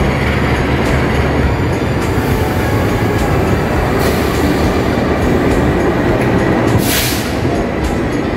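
Passenger train arriving slowly: a diesel-electric locomotive running with a low drone as it hauls passenger coaches past, wheels clicking over rail joints. A short burst of hiss comes about seven seconds in.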